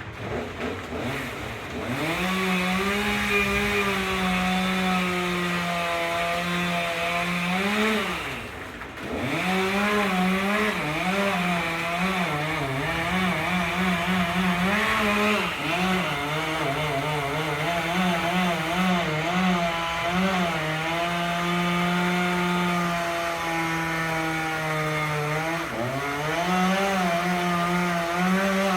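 Two-stroke chainsaw at high revs cutting through a tree trunk, its pitch wavering under load. The revs drop and pick back up a few times, once about a third of the way in and again near the end.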